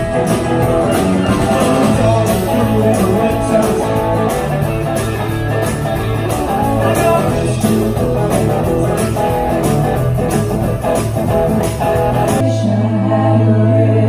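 Live band playing an upbeat rock-and-roll number, with electric guitar, bass, drums and singing. About twelve seconds in it cuts suddenly to a slower song over a held low note, without drums.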